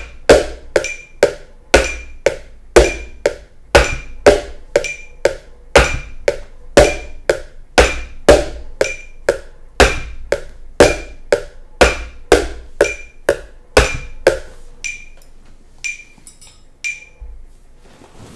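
Drum groove tapped with a thin stick on a clear plastic Tupperware container, hitting its side, rim and centre: sharp plastic knocks in a steady beat over a phone metronome's short beeps. The playing stops about fourteen seconds in, leaving three metronome beeps about a second apart.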